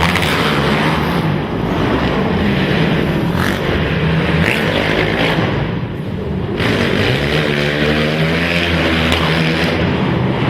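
Quad (ATV) race engines running hard, revving up and backing off; about six seconds in the revs drop briefly, then climb again.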